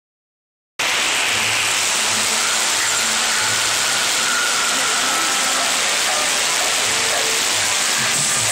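Steady hiss of rain falling on wet pavement and tarps, starting abruptly about a second in.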